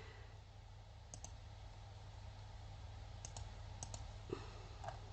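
Faint computer mouse clicks, about half a dozen scattered irregularly, over a steady low hum.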